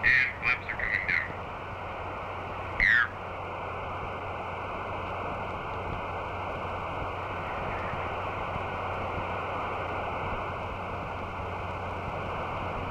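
Open radio channel hissing steadily with static. A few short warbling chirps come in the first second, and one louder chirp sweeps down at about three seconds in.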